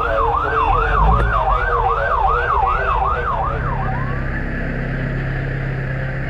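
Fire truck's electronic siren on a fast yelp, sweeping up and down about two to three times a second. It winds down and stops about four seconds in, leaving the steady hum of an engine running.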